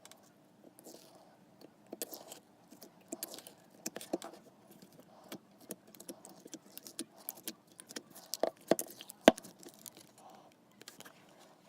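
Clear slime being mixed, making irregular sticky clicks and small crackling pops, loudest and densest about eight to nine seconds in.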